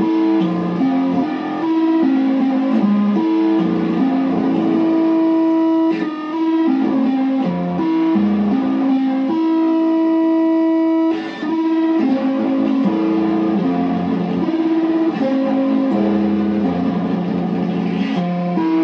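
Pickup-fitted kalimba (thumb piano) plucked through a chain of effects pedals with fuzz and a stereo delay, playing a repeating figure of low notes that ring on and overlap. About ten seconds in the notes hold steady for a couple of seconds before the figure resumes.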